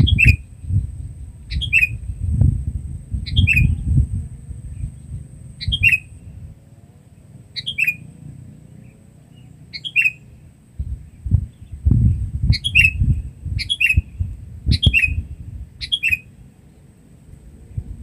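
Sooty-headed bulbul (kutilang) giving loud, short down-slurred calls, repeated every one to two seconds and quickening to about one a second near the end, over a low rumbling noise.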